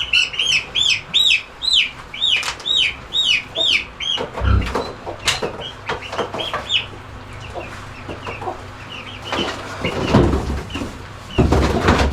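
Baby chicks peeping loudly and rapidly, about three high arched peeps a second, thinning to scattered peeps after a few seconds. Near the end come a couple of louder rustling thumps.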